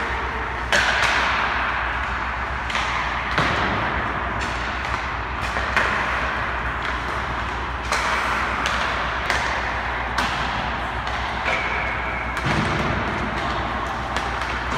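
Ice hockey pucks being shot at a goalie: a dozen or so sharp cracks of stick on puck and puck on pads, net and boards, at uneven intervals. Between them is the hissing scrape of skate blades on the ice, over a steady low hum.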